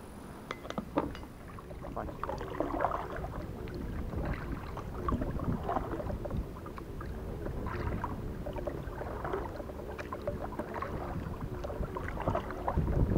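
Kayak paddle strokes: a double-bladed paddle dipping into and pulling through river water, with splashes and drips in an uneven rhythm of about one to two strokes a second.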